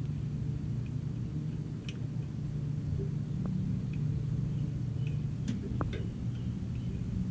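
A steady low mechanical hum, with a few faint clicks as the AC manifold gauge set's valve knobs are turned closed.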